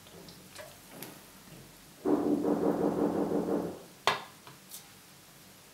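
A person's long, loud burp, lasting nearly two seconds and starting about two seconds in, after a drink from a can. A single sharp click follows shortly after it.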